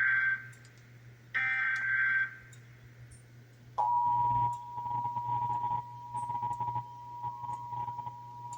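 Emergency Alert System end-of-message data bursts: the tail of one short buzzy digital squawk, then one more lasting about a second, ending about two seconds in. About four seconds in, the EAS two-tone attention signal starts abruptly and holds steady.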